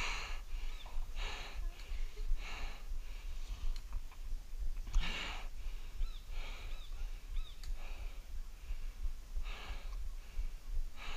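A man breathing heavily in loud, uneven breaths every second or two, out of breath from the climb.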